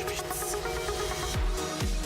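Electronic dance music. About one and a half seconds in, a deep kick drum comes in, about two beats a second.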